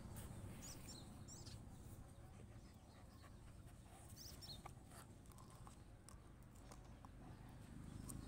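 Near silence: faint outdoor ambience with a few faint short high chirps about a second in and again near the middle, and scattered soft clicks.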